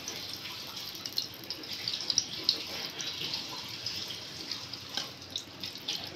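Ghee squeezed from a plastic bottle into a hot stainless-steel kadhai, melting with a light, steady crackle of many small pops.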